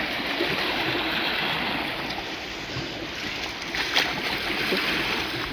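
Steady rush of moving water, with a single sharp knock about four seconds in.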